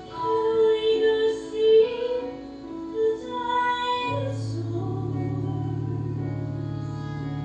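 Music from a musical: a woman singing a melody over a small instrumental accompaniment. About four seconds in, the voice gives way to a held chord with a steady low bass.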